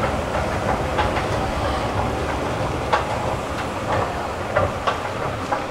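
Escalator running: a steady rumble with irregular clicks and clacks.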